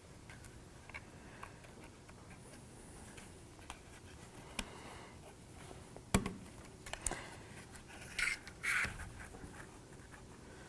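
Faint handling of small laser-cut kit pieces as a side piece is test-fitted into place: scattered light clicks, a sharper tap about six seconds in, and brief scraping around eight to nine seconds in.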